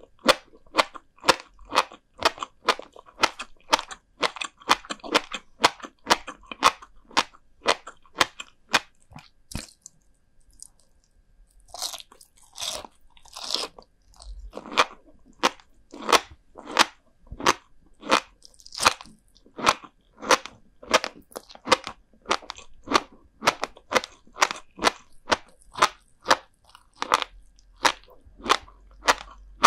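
Close-miked chewing of salted herring roe (kazunoko) and flying fish roe: crisp crunching clicks, two or three a second, pausing for about two seconds midway before the chewing resumes.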